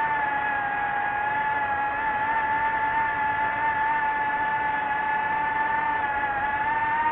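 DJI FPV drone's motors and propellers whining at a steady high pitch, rising slightly near the end.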